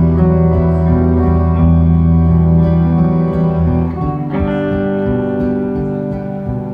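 Electric guitar and acoustic guitar playing live, with long held notes and no singing. The chord changes about four seconds in.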